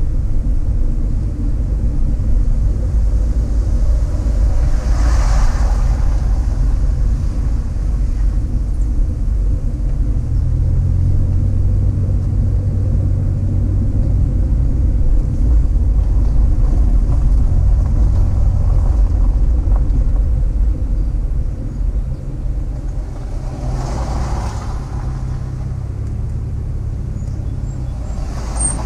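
Steady low road rumble of a moving car, with two brief swells of noise, about five seconds in and near the end, like passing vehicles.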